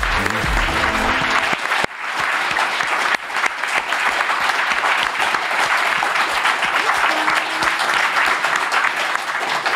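A studio audience applauding steadily. A short musical jingle plays over the first second and a half and then stops, leaving only the clapping.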